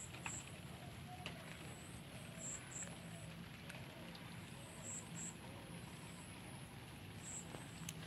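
Faint outdoor background by a pond: a steady low hiss with scattered soft ticks, and short high chirps that come mostly in pairs, about every two and a half seconds.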